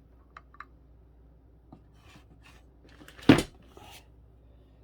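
A few faint clicks, then one sharp knock of hard objects about three seconds in, from handling tools and parts while taking a microwave apart.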